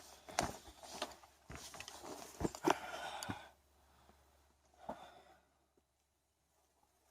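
Hiking boots stepping across loose rock, a run of irregular scuffs and knocks that stops about three and a half seconds in, with one more step near five seconds.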